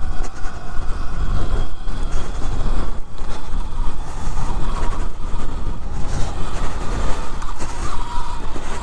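Sur Ron X electric dirt bike ridden along a rough dirt track, heard through a microphone inside the rider's helmet: a continuous uneven rumble of wind and bumps, with the bike's funny high-pitched sounds faintly over it, clearest near the end.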